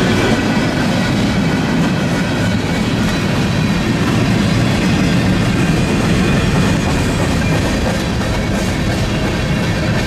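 Freight train cars rolling past close by: a steady, loud rumble and clatter of steel wheels on the rails, with faint high ringing tones from the wheels over it.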